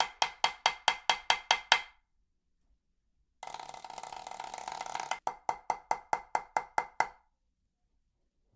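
Drumsticks on a practice pad: about ten even single strokes, roughly five a second, then after a short pause a buzz roll whose strokes stand out as separate pulses near the end.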